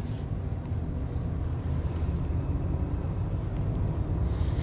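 Car cabin road noise while driving: a steady low rumble of engine and tyres, with a brief hiss near the end.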